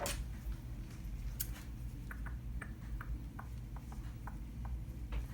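Cardboard box being handled and opened by hand: a sharp click at the start and another about a second and a half in, then scattered light clicks and taps, over a low steady hum.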